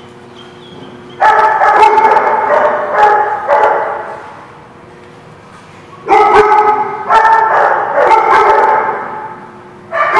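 A dog barking in quick high yaps, in two runs of about three seconds each, starting about a second in and about six seconds in, with a third run starting near the end.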